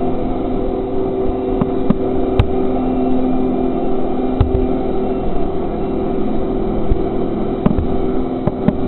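Wheel loader's diesel engine running steadily as it works along a torn-up street, with a few sharp knocks and clanks.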